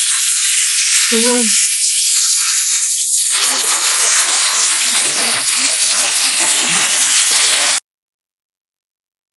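Steady loud hissing rush of noise, with a short voice about a second in; it cuts off abruptly near the end.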